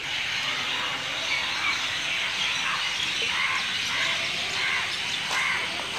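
Dense, steady chorus of many birds chirping and calling at once after dusk, from what seems to be a nesting or roosting spot.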